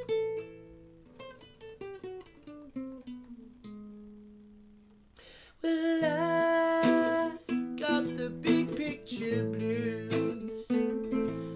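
Acoustic guitar played solo: single plucked notes stepping downward, ending on a held note that fades. About six seconds in it turns louder, with strummed chords and a man's singing voice over them.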